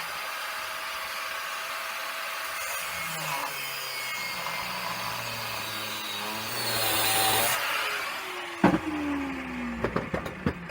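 Angle grinder with a cutting disc slitting through the Allen-head bolts of a scrap boiler's casting, running steadily under load. Near the end it is released and spins down with a falling whine, followed by a few sharp metal knocks.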